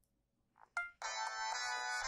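Siemens CF62 mobile phone ringtone starting about a second in, a loud electronic melody of several tones at once from the phone's speaker, just after a short beep.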